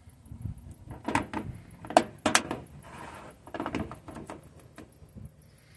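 Sharp clicks and knocks of hard parts being handled and set down on a clamp-style knife sharpening guide, coming in clusters, the two loudest about two seconds in.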